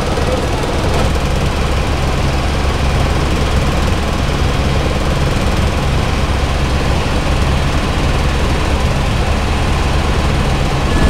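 Loud, steady low engine drone.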